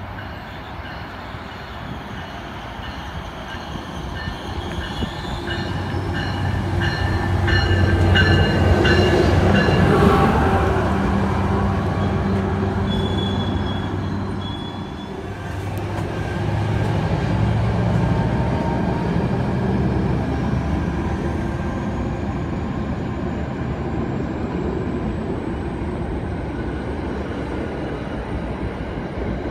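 NJ Transit commuter train pulling into the station and rolling along the platform as it slows: a low engine hum and wheel rumble that grow louder and peak about a third of the way in, with short high wheel squeals. A faint, slowly rising whine comes in over the second half as the train eases toward a stop.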